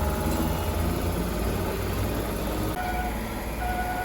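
Low, steady rumble of a large vehicle's engine. About three seconds in, a warning beeper starts, sounding about once a second.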